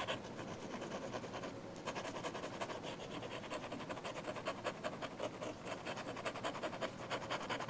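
Fountain pen nib scratching across sketchbook paper in rapid back-and-forth hatching strokes, with a brief pause about one and a half seconds in.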